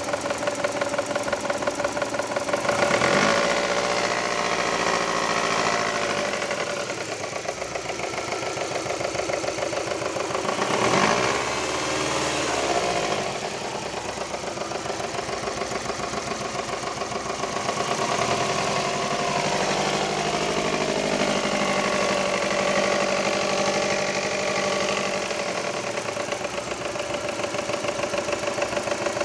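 Subaru Impreza's flat-four boxer engine running with a knock. It is revved up briefly about three seconds in and again around eleven seconds in, then settles back to idle.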